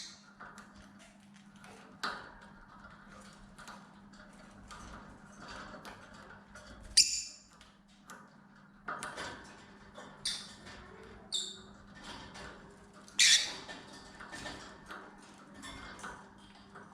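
Lovebirds giving short, sharp high-pitched squawks every few seconds, loudest about seven and thirteen seconds in, over faint scattered clicking and rustling.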